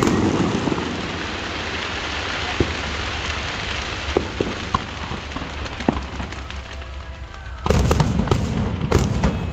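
Aerial fireworks: a dense crackling fizz that thins out, with a few sharp single pops. About three-quarters of the way through, a fresh, louder volley of bangs and crackle starts suddenly.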